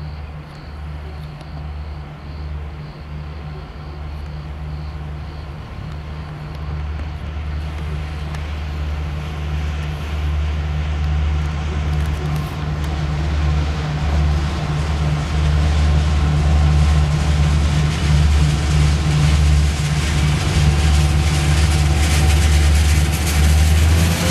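Diesel locomotives hauling a passenger train, drawing close and passing: a steady low engine drone that grows louder throughout.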